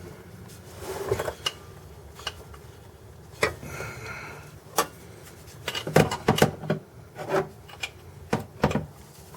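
Hand tools clinking, knocking and scraping against metal in an irregular run of sharp clicks, a few of them ringing briefly, as work goes on at the Jeep's clutch slave cylinder mounting.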